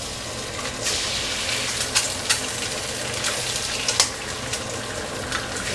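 Food frying in hot bacon grease in a pan: a steady sizzle with sharp pops and crackles of spattering grease.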